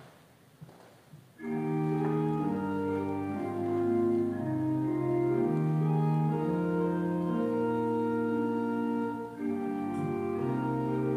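Church organ playing slow, sustained chords, starting about a second and a half in after a few faint knocks, with a brief dip in level near the end.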